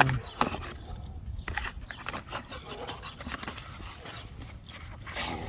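Irregular light clicks, scrapes and rustles as a battery switch and its packaging are opened and handled by hand.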